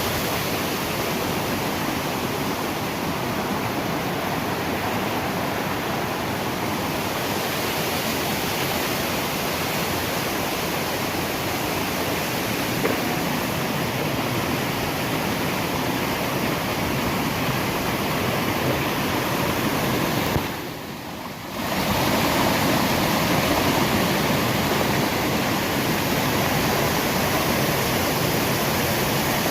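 Waterfall: the steady rush of falling water, with a brief drop for about a second two-thirds of the way through.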